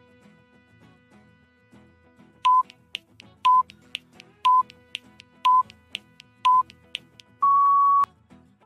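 Countdown timer sound effect over soft background music: a ticking clock with five short beeps one a second, then a longer, slightly higher final beep that marks the end of the time to answer.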